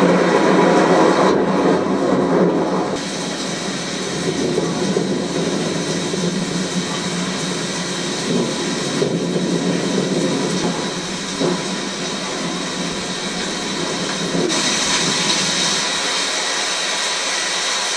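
Heavy rain pouring steadily onto the ground, grass and trees: a dense, even hiss that turns a little hissier about fourteen seconds in.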